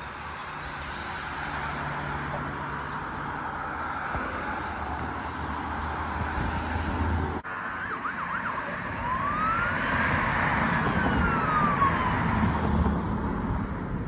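Steady vehicle engine and road noise, then after a cut an approaching emergency vehicle's electronic siren: a quick warbling yelp, then one slow rising and falling wail, getting louder.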